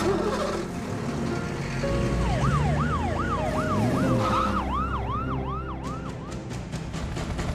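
Emergency-vehicle siren yelping in quick rising-and-falling sweeps, about two and a half a second. It starts about two seconds in and dies away near the end, over a low rumble.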